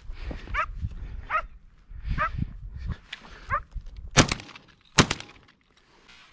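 A dog giving four short, wavering whines or yelps, over scuffling and movement noise. Two sharp cracks, the loudest sounds, follow in the second half, less than a second apart.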